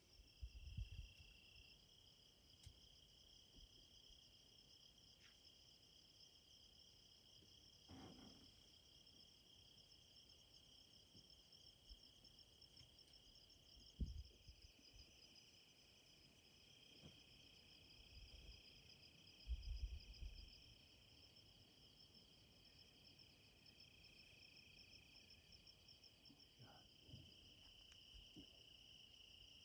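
Faint, steady chorus of insects, crickets by the sound of it: a high pulsing trill over a lower, continuous tone. A few short low thumps break in, the sharpest about halfway through and another cluster about two-thirds in.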